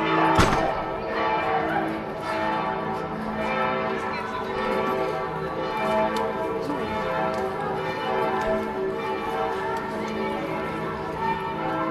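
Church bells ringing, many bell tones at different pitches sounding and overlapping.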